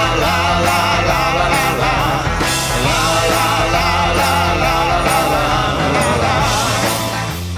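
Background music: a rock song with a steady beat and a melody line.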